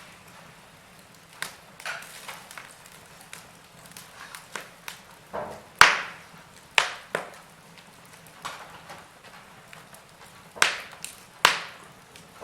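Wood fire crackling: burning logs give off irregular sharp pops and snaps over a faint steady hiss. The loudest pop comes about halfway through, and a few more strong snaps follow near the end.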